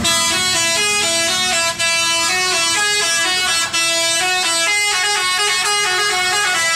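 Bus 'telolet' horn, a set of musical air horns, playing a tune of stepped notes that changes pitch every fraction of a second, with two brief breaks.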